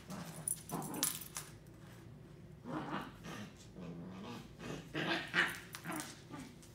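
A Corgi puppy and an older dog play fighting: short growls and scuffling in irregular spurts, with a few sharp clicks on the hard floor.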